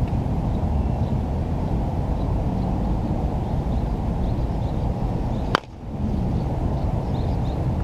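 Steady low rumbling wind noise on the microphone, broken about five and a half seconds in by one sharp crack.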